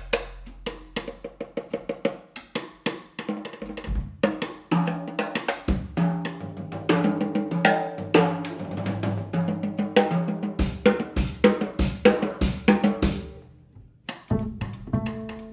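Jazz drum solo on a Yamaha drum kit: quick strokes around the snare and toms with bass drum, building to a run of heavy strokes with bass drum about two a second. The drums drop away near the end and a plucked double bass comes back in.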